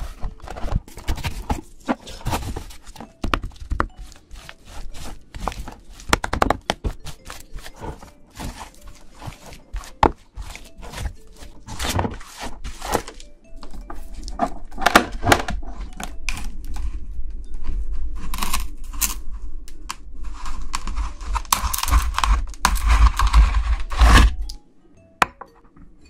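Pink spatula chopping and tapping ice cream on a frozen metal ice-cream plate, many quick knocks. About halfway through this gives way to a denser, steadier scraping as the mixture is spread thin across the plate, which stops a couple of seconds before the end.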